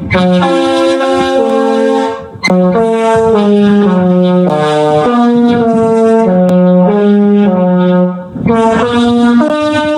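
A ringtone melody with a brass-like tone, a run of quick notes that change pitch every fraction of a second. It breaks off briefly twice, about two and a half and eight seconds in, then carries on.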